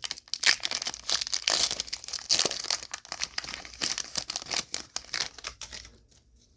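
Foil Yu-Gi-Oh booster pack wrapper being crinkled and torn open by hand, a dense run of rapid crackles and rips that stops about six seconds in.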